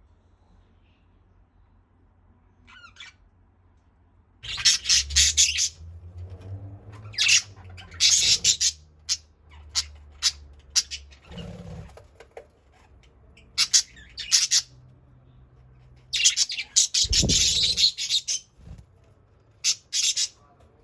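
Budgerigars squabbling aggressively: harsh, scratchy squawks in bursts of up to a second or so, with short gaps between, starting about four seconds in after a single faint chirp.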